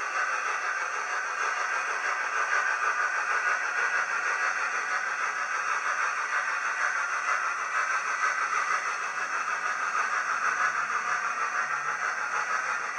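OO-gauge model train running along the track: a steady whirring, rolling noise of small wheels on the rails, heard close.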